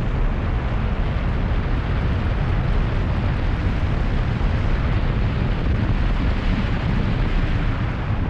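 Steady rushing wind and road noise of a car driving at speed, heaviest in the low end.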